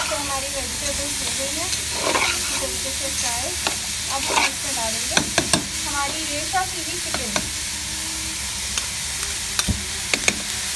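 A pan of chopped vegetables (cabbage, peas, tomato and green pepper) sizzling steadily while being stirred with a spatula, with scattered clicks and scrapes of the spatula against the pan.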